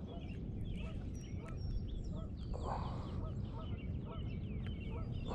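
Waterfowl honking over and over, short calls a couple of times a second, with higher chirps mixed in and a brief rush of noise about halfway through, over a steady low rumble of wind on the microphone.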